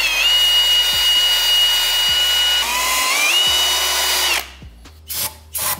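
Cordless drill spinning a 3M Roloc bristle disc against an aluminum engine block, scrubbing off old gasket material: a steady high whine that drops in pitch about halfway as the disc bears down, climbs back, then stops, followed by a couple of short bursts near the end.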